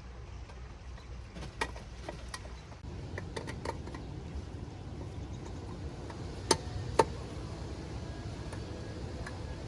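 Outdoor wall lantern's glass and metal parts clicking and tapping as they are handled and fitted together: a few light clicks, then two sharp louder clicks about half a second apart, over a steady low background rumble.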